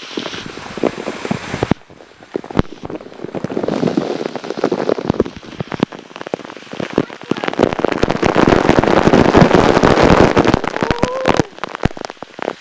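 Waterfall water pouring and splashing close by, a dense crackling spatter like heavy rain, building to its loudest between about 7 and 11 seconds in and then dropping off suddenly.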